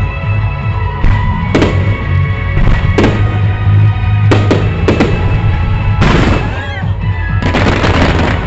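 Fireworks bursting one after another over loud show music, with about eight sharp bangs followed by two stretches of dense crackling near the end.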